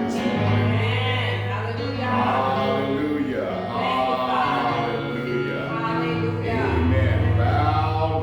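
Gospel worship music: voices singing over instrumental accompaniment with long held bass notes that change pitch twice.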